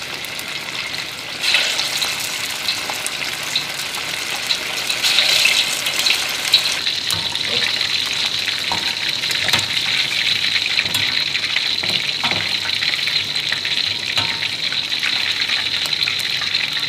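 Battered, marinated pork pieces deep-frying in hot oil in a steel wok: a steady sizzle that grows louder about a second and a half in. A few light knocks from the ladle and wire strainer against the wok come later.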